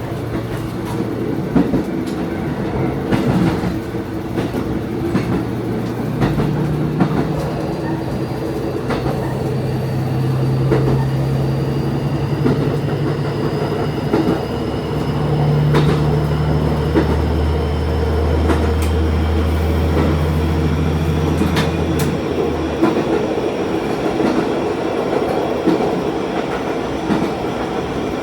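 Diesel railcar running along the line, heard from on board: steady running noise with rail-joint clicks. A low engine drone comes in about six seconds in and drops away a little after twenty seconds, and a faint high whine slowly rises from about eight seconds in.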